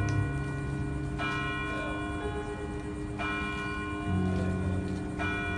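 Church keyboard or organ music under the sermon: slow held chords in the low register, changing twice, with a bell-like chime struck about every two seconds and left to ring out.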